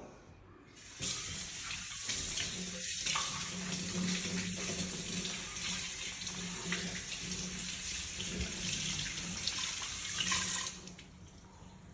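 Kitchen tap running into a sink while a cooking pot is washed under it. The water starts about a second in and is turned off near the end.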